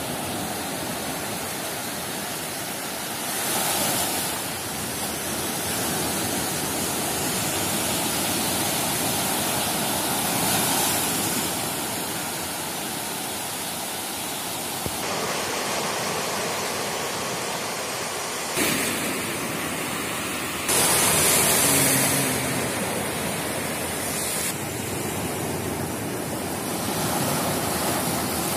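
Small waves breaking and washing up on a sandy beach: a steady rush of surf that swells louder several times as waves come in, with a few sudden shifts in the sound partway through.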